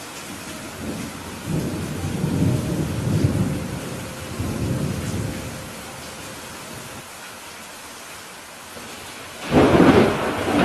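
Heavy rain falling steadily through a thunderstorm. A long rolling rumble of thunder runs from about a second and a half in to about five seconds, then a louder, sharper thunderclap comes near the end.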